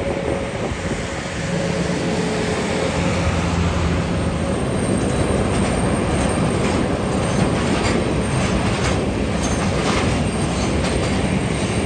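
Steady rumbling roar of airliner jet engines, from a Condor Airbus A330 passing low on final approach, swelling slightly about a second and a half in.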